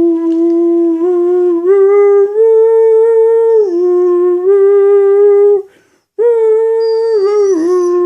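An Australian Shepherd howling along with a man singing, in long held notes that step up and down in pitch. There is a short break about six seconds in.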